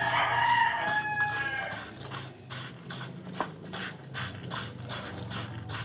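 A rooster crows once at the start, one long call lasting about a second and a half. After it come soft, rapidly repeated squishing strokes from hands kneading chopped meat in a plastic bowl, over a low steady hum.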